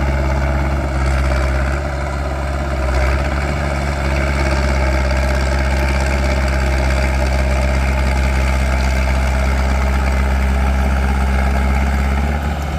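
Small bulldozer's diesel engine running steadily with a deep, even drone that dips slightly about two seconds in and again near the end.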